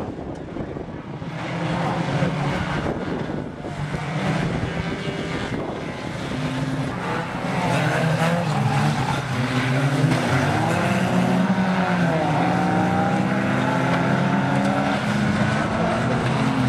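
Several micro banger race cars' small engines revving hard as they race round the oval, their pitches rising and falling and overlapping as the cars accelerate and lift. The engines grow louder from about seven seconds in as the cars come closer.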